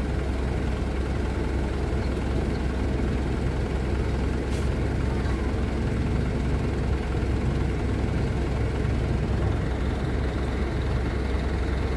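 Loaded truck's engine running steadily at low revs as the truck creeps through mud, a continuous low rumble.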